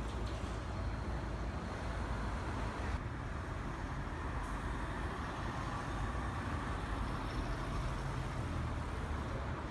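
City street traffic: a bus pulling away and cars driving past, a steady rumble of engines and tyres.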